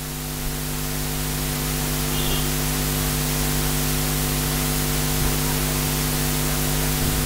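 Steady hiss with a low, even hum under it: background noise of the recording, swelling slightly over the first couple of seconds and then holding steady.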